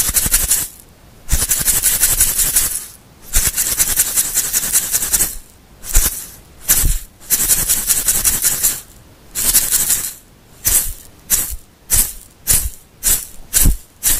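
Something full of small hard bits being shaken, like a rattle: long runs of continuous shaking at first, then separate short shakes about two a second toward the end.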